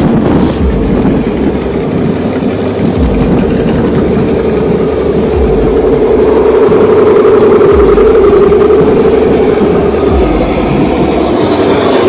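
Scale RC rock crawlers (Axial SCX10 trucks) with their electric motors and gearboxes whining steadily as they crawl over rocky ground. The sound grows louder about halfway through and eases near the end.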